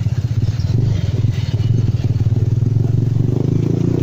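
Small motorcycle engine of a passenger tricycle running steadily under way, heard from inside the passenger cab.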